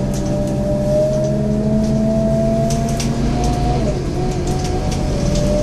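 Scania N230UD double-decker bus driving under power, heard from the upper deck. Its five-cylinder diesel gives a steady low note under a whine that climbs slowly with speed, drops away about four seconds in at a gear change and returns lower near the end. Light rattles and clicks come from the body and fittings.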